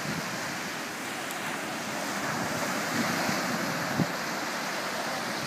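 Surf breaking and washing up on a sandy beach, a steady rush that swells a little about three seconds in, with wind buffeting the microphone. A brief low thump about four seconds in.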